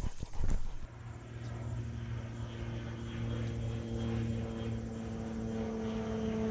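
Steady drone of a propeller aircraft's engine, slowly growing louder, after a few brief knocks in the first second.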